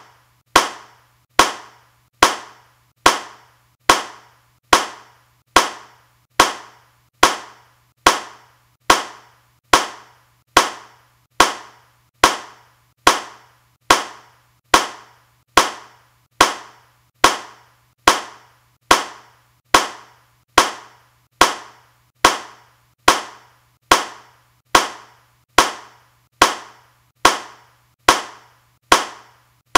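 A single hand clap repeated at an even pace, a little more than once a second, each clap sharp with a short decaying tail and each one alike.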